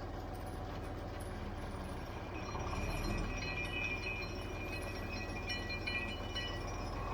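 John Deere 4020 six-cylinder tractor engine running steadily. About three seconds in, the PTO-driven feed grinder starts turning to grind corn, and the sound grows louder with metallic clinking and ringing.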